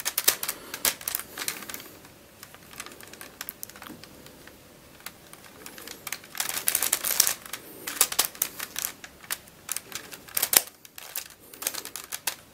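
Plastic Helicopter Dodecahedron twisty puzzle being turned and jumbled by hand: irregular rapid clicking and clacking of its plastic pieces, coming in denser runs about halfway through and again later on.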